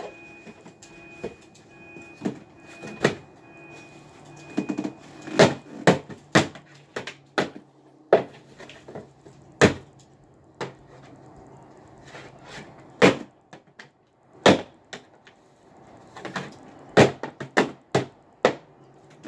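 Hard knocks and cracks at irregular intervals, about a dozen, from a TV being struck and broken apart.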